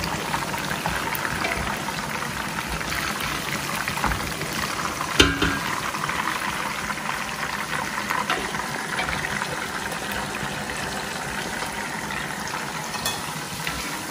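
Chicken kebab pieces deep-frying in hot oil, a steady sizzle and bubbling, as a wire-mesh skimmer lifts them out of the pan. A single sharp knock about five seconds in.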